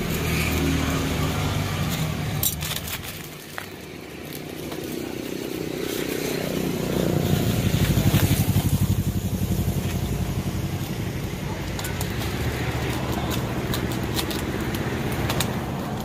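A motor vehicle engine, likely a motorcycle, running close by. It dips briefly, then swells to its loudest around the middle and keeps going. Scattered sharp clicks and clatters sound over it.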